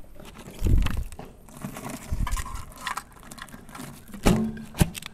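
Crinkling and rustling of paper tape around a small wall-set box as it is handled, with dull bumps and two sharp knocks near the end as its cover is worked.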